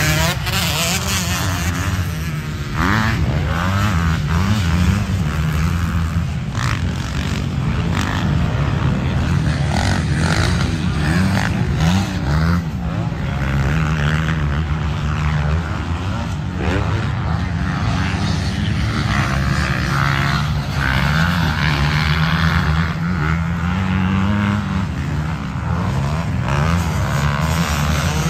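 Several motocross dirt bikes riding a dirt track, their engines revving up and falling back again and again as the riders accelerate and shift through corners and straights.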